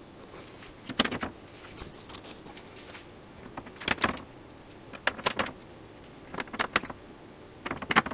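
Thin plastic reflector sheet of an LED TV backlight crackling and clicking as it is handled and pressed down around the LED lenses. There are short, sharp clicks in small irregular clusters, the busiest near the end.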